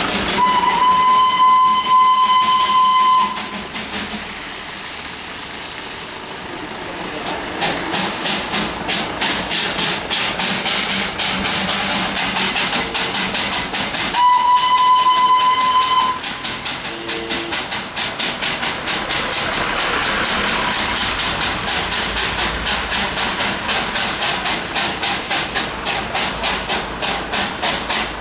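Darjeeling Himalayan Railway steam locomotive giving two long, steady whistle blasts, one near the start and one about halfway through, over a hiss of steam. From about a quarter of the way in, its exhaust chuffs in a quick, steady rhythm.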